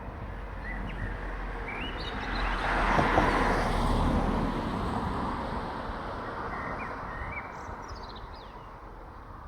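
A vehicle passing by, its noise swelling to a peak a few seconds in and then fading away, while small birds chirp now and then.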